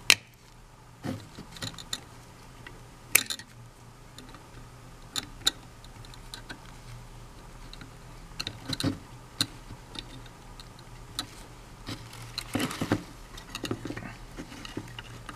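Needle-nose pliers crushing an old graphite roller off a Lionel KW transformer's control arm: scattered sharp clicks and small crunches as the metal jaws bite and the brittle graphite breaks away, with a cluster of them about 12 to 14 seconds in.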